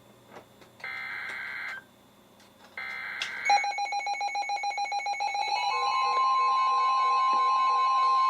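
NOAA Weather Radio SAME header data bursts: two short, harsh digital screeches about a second apart that end about 3.5 s in, signalling an incoming Flash Flood Warning. A weather radio alert alarm follows, first a rapidly pulsing tone and then, about 6 s in, a steady loud tone near 1 kHz: the warning alarm tone.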